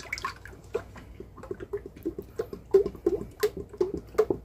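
Heavy whipping cream glugging out of a quart carton as it pours into a stainless steel mixer bowl: a quick, uneven run of short gulps and splashes.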